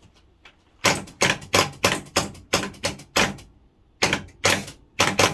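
Gottlieb Big Indian pinball machine's score reel stepping up ten points at a time: a sharp mechanical clack about three times a second, in two runs with a short pause a little after three seconds in.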